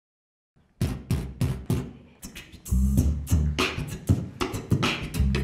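Beatboxing: sharp mouth-made beats about three a second start after a moment of silence. About two and a half seconds in they become a fuller groove with a low hummed bass note under them.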